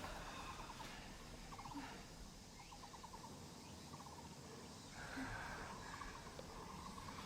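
Faint outdoor ambience with small animals calling in short trills of rapid ticks, about one trill a second, running almost unbroken near the end.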